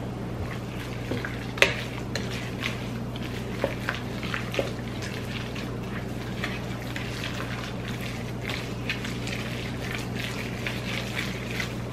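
Wooden spoon mixing a raw ground-meat mixture in a glass bowl: soft squelching with irregular clicks and scrapes of the spoon against the bowl, one louder knock about a second and a half in.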